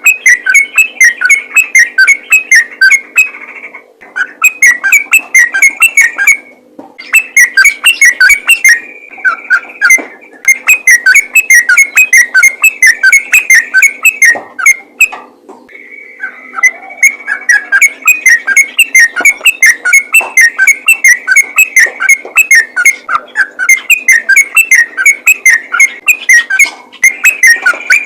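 Yellow-vented bulbul singing in fast, continuous runs of bubbling notes, the phrases lasting a few seconds with short breaks between them, over a faint steady low hum.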